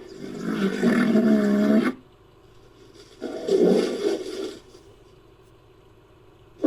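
Designed creature sound effect for a rhinoceros-like beast: a pitched roaring bellow lasting about two seconds, then a second, shorter bellow about three seconds in.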